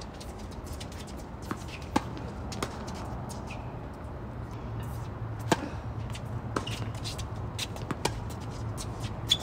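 Tennis rally on a hard court: sharp, irregular pops of rackets striking the ball and the ball bouncing, with the loudest strikes about two, five and a half and nine seconds in, over a low steady hum.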